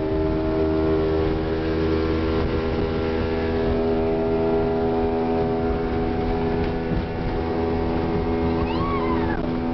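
Small Ryds cabin motorboat's engine running steadily under way, a constant droning hum over a hiss of water and wind. A brief high sliding sound rises and falls near the end.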